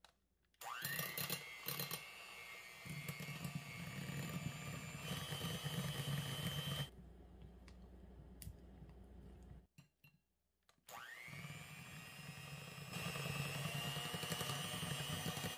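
Electric hand mixer beating cream cheese and butter in a glass bowl: the motor whines up to speed about a second in, steps up in pitch partway through and stops after about six seconds. A few seconds later it starts again with the same rising whine and runs faster and louder near the end.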